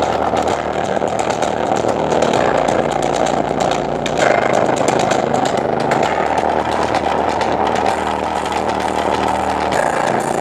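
Unmounted Ssangyong Rexton factory door speakers playing a bass test: a loud, rough buzz over steady low bass notes that change about every three to four seconds.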